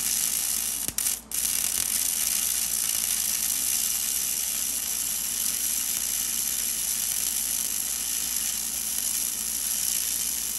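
MIG welder laying a continuous bead on a steel car frame-rail patch panel: the arc runs with a steady hiss, breaks off briefly about a second in, then runs on unbroken.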